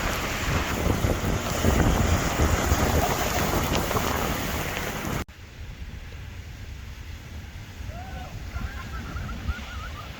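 Strong wind gusting and buffeting the microphone, a heavy rumbling rush that cuts off abruptly about halfway through. After that comes quieter wind, with a run of short chirping tones near the end.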